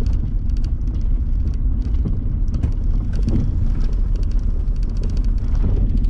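Panel van driving over a rough dirt track, heard from inside the cab: steady engine and tyre rumble with frequent short clicks and rattles as it bounces over the ground.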